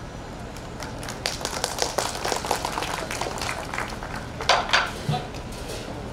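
Scattered hand clapping from a small audience. It picks up about a second in and fades after about four seconds, with two louder claps near the end.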